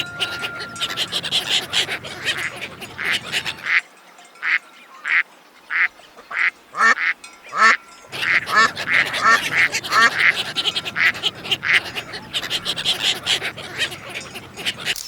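Ducks quacking in fast, overlapping runs. About four seconds in, the calls thin out to single quacks with short gaps between them. The quick, dense quacking returns about eight seconds in.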